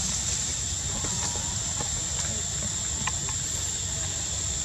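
Insects droning steadily on one high pitch, with a low rumble underneath and a few faint clicks.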